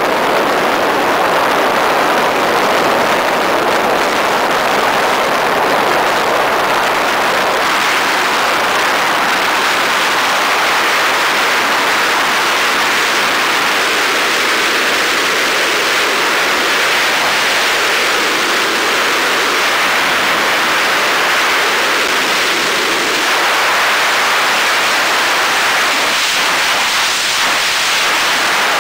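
Steady, loud rush of airflow past the cockpit of a Calif glider in flight, an even hiss with no engine note.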